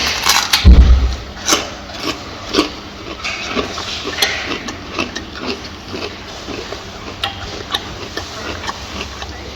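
Gorilla eating: irregular crunching and clicking of chewing, with a heavy low thump about a second in.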